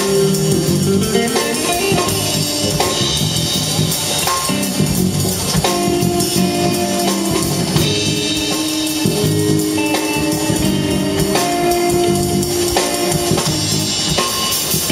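Live jazz combo playing an instrumental passage: electric guitar over electric bass and drum kit, with no vocals.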